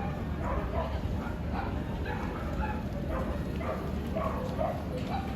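Dog barking repeatedly, about two short barks a second, over a steady low hum.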